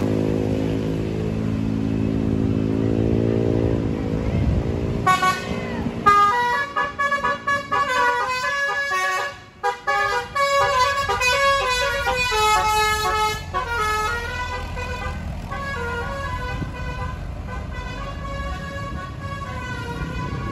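A tour bus's basuri telolet musical horn playing a melody: it starts about five seconds in with quick changing notes, then moves to slower, held notes. Before it, a low engine note rises and falls.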